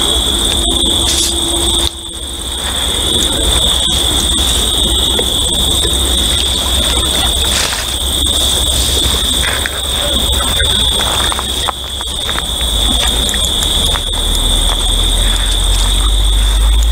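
A steady high-pitched insect trill, like a cricket chorus, with a low rumble underneath.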